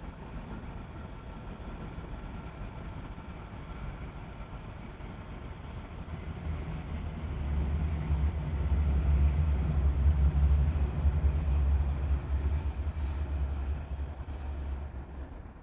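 A vehicle passing on the street: a low rumble that builds from about six seconds in, is loudest in the middle and fades near the end, over a steady background of traffic noise.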